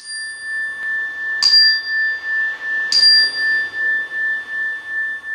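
A small handheld metal chime bar struck three times, about a second and a half apart, each strike ringing on in a long, clear tone that wavers in loudness about twice a second.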